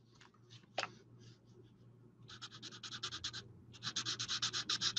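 Alcohol marker nib scratching back and forth on cardstock in quick short strokes, about ten a second, as the colour is laid in; the strokes start about two seconds in and pause briefly a second later before going on.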